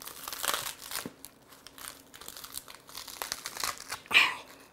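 Crisp romaine lettuce leaves torn and snapped apart by hand: a run of short crackling, crunchy tears, the loudest one a little after four seconds in.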